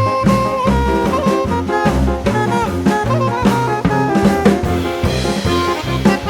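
Background music: an upbeat jazz tune with saxophone or brass melody over a steady drum-kit beat.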